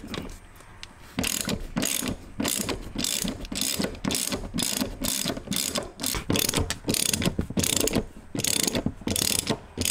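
Big ratchet wrench on a long extension clicking in quick runs of pawl clicks, starting about a second in, as it backs out the Torx T50 seat-rail bolts.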